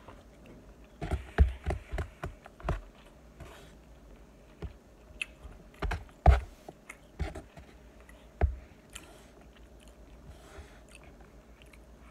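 A person eating close to the microphone: chewing, with a scatter of sharp clicks and knocks, thickest in the first few seconds and again around the middle.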